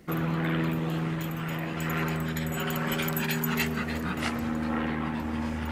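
A Cavalier King Charles spaniel whining and panting up close, over a steady low hum from an unseen machine.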